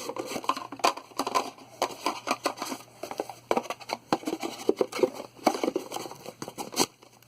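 Small hard plastic objects being handled: quick, irregular clicks and clacks, with a few louder sharp clicks among them.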